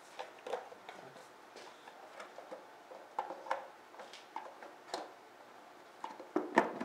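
Light, irregular clicks and taps as a Harley-Davidson V-Rod's airbox cover is handled and set over the air cleaner, with a few sharper knocks near the end.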